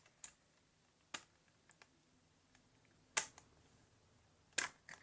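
A few scattered light clicks and taps of a small plastic toy being handled, with the two loudest about three seconds in and near the end.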